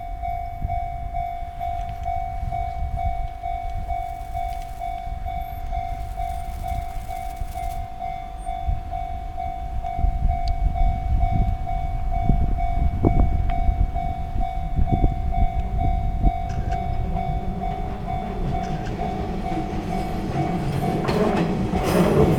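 Railway level-crossing bell ringing in a steady, even rhythm as a Nishitetsu 8000 series electric train approaches. The train's low rumble grows louder, most of all in the last few seconds as it draws close.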